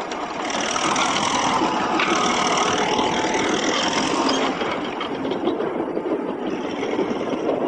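Engine of a small manure loader running steadily as it clears dung in a cow barn.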